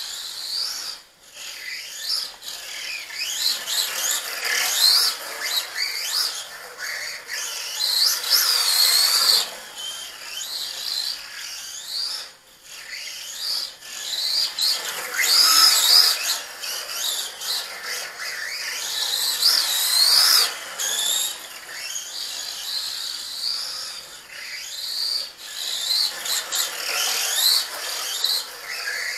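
LC Racing short course RC truck's Racerstar 2845 5900kv brushless motor and drivetrain whining at high pitch, sliding up and down and surging again and again as the truck speeds up and slows.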